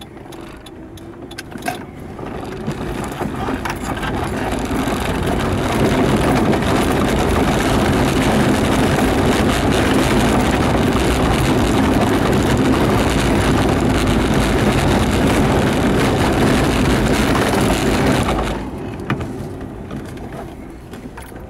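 Renault Supercinco Campus engine heard from inside the cabin as the car pulls away under acceleration: it grows louder over about four seconds, runs steady and loud, then falls away sharply near the end as the car slows.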